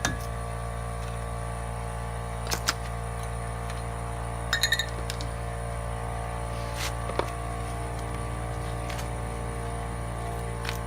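A steady low electrical-sounding hum with a few scattered light metal clicks and clinks, one short ringing clink about halfway, from handling parts of a trailer wheel hub just after its grease cap has been knocked off.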